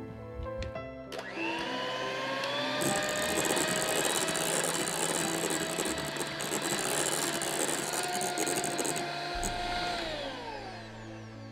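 Electric hand mixer whipping sweetened plant-based cream in a glass bowl. The motor spins up with a rising whine about a second in, runs steadily, and winds down near the end.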